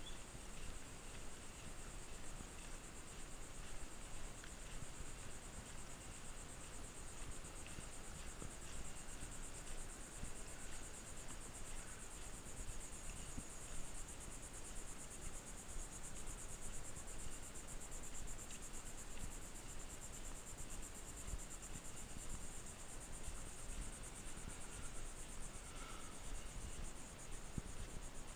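Insects trilling in a steady, high-pitched drone with a fast pulsing texture.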